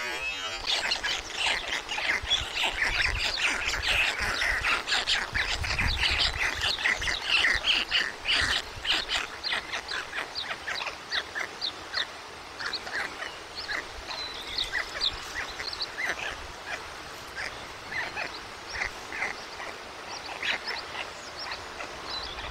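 White stork chicks begging from the parent in the nest, giving rapid short high calls, dense at first and thinning out over the second half.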